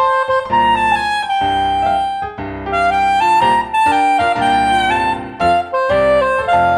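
Soprano saxophone playing a jazzy melody of held notes over piano chords, a saxophone and piano duet.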